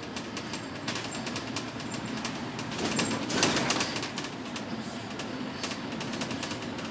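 Inside a moving bus: steady engine and road noise with frequent light ticks and rattles, swelling louder for about a second some three seconds in.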